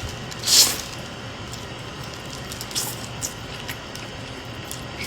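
Close-up eating sounds from a takeout meal: one loud crisp, crackly burst about half a second in, then quieter chewing with a few light clicks.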